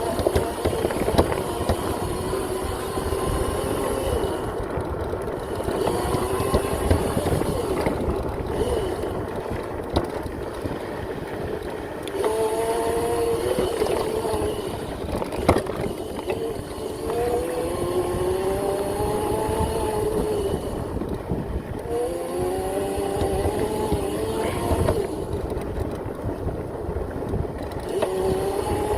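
Electric motor of a Razor MX650 pit bike upgraded to a 5000 W, 72 V motor, whining up and down in repeated rising sweeps as the bike accelerates and eases off, over a steady rough rumble from riding.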